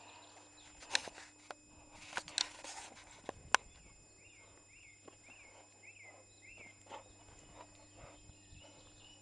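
Scuffling and sharp knocks from a tug-of-war with a dog over a fabric bite tug on grass, the loudest a single sharp knock about three and a half seconds in. Then six short high chirps in an even row, about two a second.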